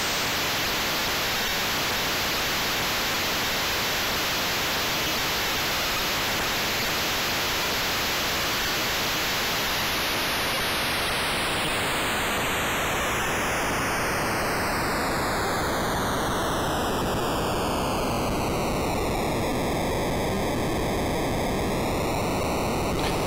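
Steady hiss of digital noise from a CD4006 shift-register noise module clocked by a synth oscillator. From about ten seconds in the clock is turned down and the hiss grows duller and lower until about twenty seconds in, then rises slightly near the end.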